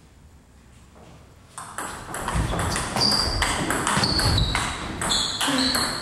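Table tennis rally: the celluloid ball clicks off the bats and the table in quick succession, starting about a second and a half in after a short quiet. Shoes squeak and stamp on the wooden floor as the players move.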